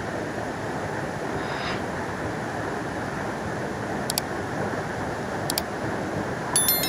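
Steady rush of flowing river water, with a few faint clicks and a short ringing sound near the end.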